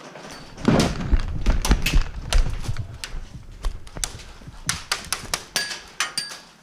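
Airsoft gunfire: irregular sharp cracks and clicks, a couple of them near the end with a short metallic ring. A heavy low rumble of movement on the camera microphone runs through the first couple of seconds.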